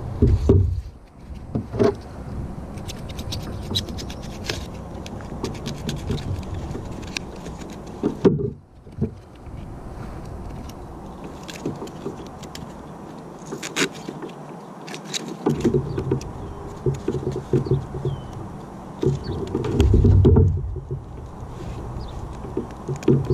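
Scattered clicks, knocks and scrapes of fiber-optic cable and foam floats being handled in a small boat, with a few heavier low thumps, near the start, about eight seconds in and about twenty seconds in.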